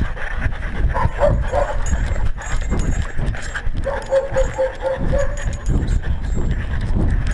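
A GoPro on a walking dog's collar picks up uneven low thumps and rubbing as the camera bounces with the dog's steps. About four seconds in there is a quick run of short high notes.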